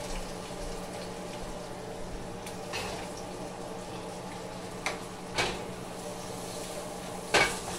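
Steady hum and hiss of pans heating on a gas stove, broken by a few sharp knocks, the loudest near the end as a pan is set back down on the burner grate.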